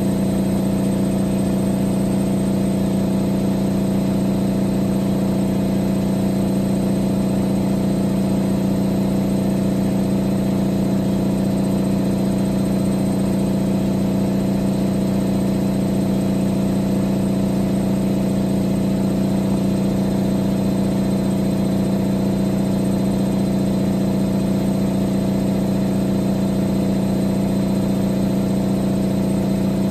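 Siemens Siwamat XS 1060 front-loading washing machine running through a boil-wash programme with a steady, unchanging hum and whine.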